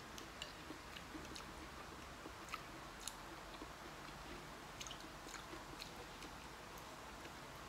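Two people eating glass-noodle soup with chopsticks and spoons: faint chewing and scattered small clicks of utensils against ceramic bowls.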